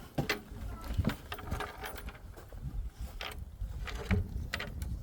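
Chicken waterer being handled: a string of irregular light clicks and knocks over a low rumble.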